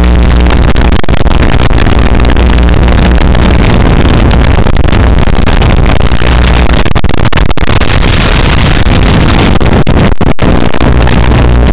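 Loud, steady rushing noise with no beat, cutting out for an instant about ten seconds in.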